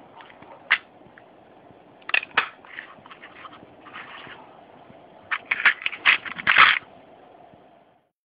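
Small stackable plastic storage boxes being handled: lid latches clicking and plastic clacking, with screws and nails rattling inside. A dense run of loud clicks and clatter comes near the end, then the sound fades out.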